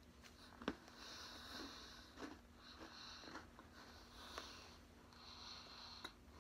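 A person chewing a bite of a Twix caramel cookie bar with the mouth closed: faint crunches and clicks, the sharpest just under a second in, between slow breaths through the nose.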